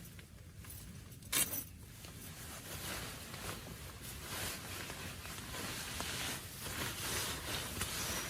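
Rainstorm noise of rain and wind, swelling and falling in gusts from about three seconds in. A single sharp knock comes about a second and a half in.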